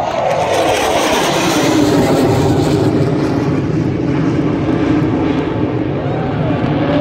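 Jet noise of an HAL Tejas fighter's turbofan engine as it flies past, loud, its pitch dropping over the first two seconds as it passes, then holding steady as it moves away.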